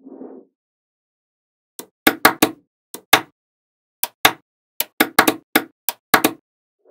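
Small magnetic balls snapping into place one at a time: a run of about sixteen sharp clicks in quick clusters, with a brief soft rustle at the start.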